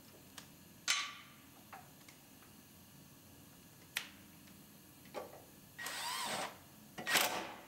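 Workshop tool sounds: a few scattered clicks and knocks, a short steady mechanical whir about six seconds in, and a louder rasping burst about a second later.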